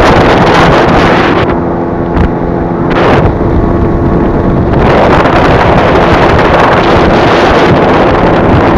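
Strong wind buffeting the microphone on an open boat. The wind eases for a few seconds partway through, letting a steady low pitched hum through, then the buffeting comes back.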